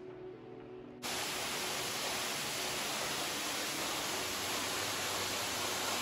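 Steady rushing hiss of Slave Falls, a waterfall plunging from a sandstone overhang with plenty of water flowing over it. It comes in suddenly about a second in, after a faint quiet start.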